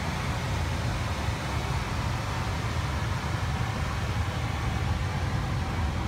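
Old Heil gas furnace running, a steady low hum under a rush of air from its blower. The owner says the blower fan was failing and not spinning fast enough.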